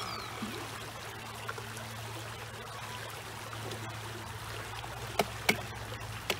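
A shallow creek running steadily over rocks. Near the end come three sharp clicks as the plastic RC boat is handled.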